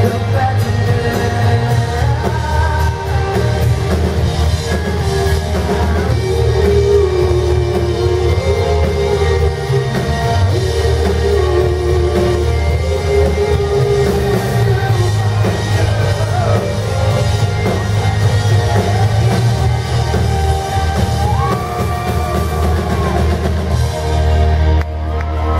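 Live rock band playing a song: a sung lead vocal melody over electric guitars, bass guitar and drums. The music drops away near the end.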